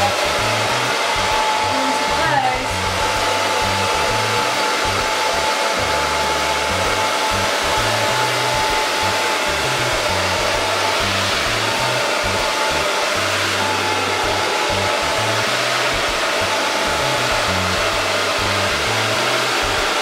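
Handheld hair dryer switched on and blowing steadily at a constant setting: a loud rush of air with a thin steady whine.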